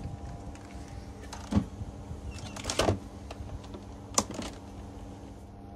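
Scattered light clicks and knocks, three of them louder, over a steady low hum.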